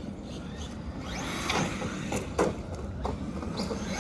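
Traxxas Maxx RC monster truck's electric motor whining up in pitch about a second in, followed by several sharp knocks and clatters as the truck bounces and tumbles over the ground.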